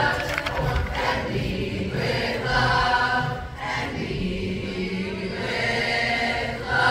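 Seventh-grade school choir singing together in long held notes.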